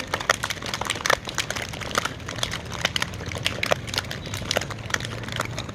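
Several people clapping their hands overhead, not in unison: sharp, uneven claps, several a second.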